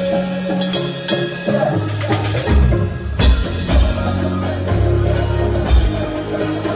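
Live band playing during a sound check: bass guitar and drum kit, the bass and kick drum coming in strongly about two and a half seconds in.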